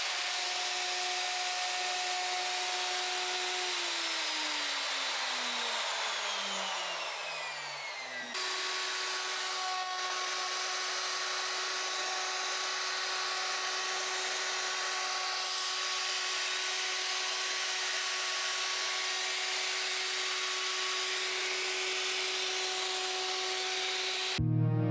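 Handheld wood router running at full speed as a homemade planer, a steady high motor whine over a rushing hiss. About four seconds in, the whine falls steadily in pitch as the router winds down, then it is abruptly back at full speed and runs steadily. Music begins at the very end.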